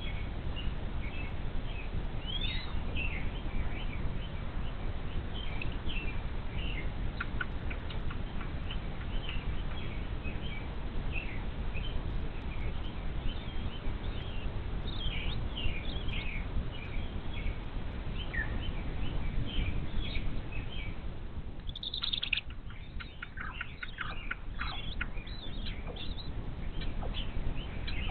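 Birds chirping, many short high calls and trills over a steady low rumble; a louder high call about 22 seconds in, followed by a quick run of falling notes.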